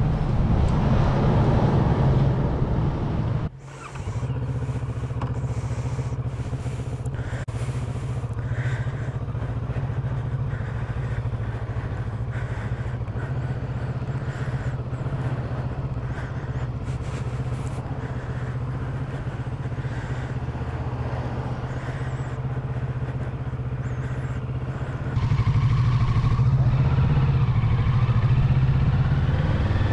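Kawasaki Z650RS parallel-twin motorcycle engine running while under way, a steady low drone with road noise. It is louder for the first few seconds, drops sharply about three and a half seconds in, and picks up again for the last five seconds.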